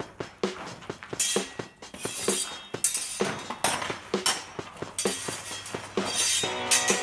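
Steel swords clinking against each other and against bucklers in sword-and-buckler sparring, over background music with a beat; a guitar comes in near the end.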